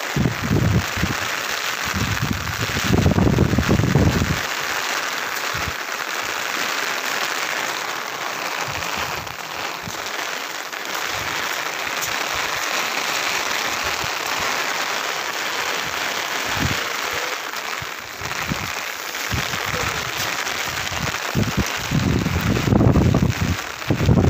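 Steady hiss of heavy rain, with a few low rumbles near the start and again near the end.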